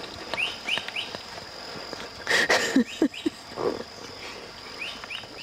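A steady high insect whine with small groups of short rising bird chirps. About halfway through comes a loud rough burst, then a few short low sounds falling in pitch.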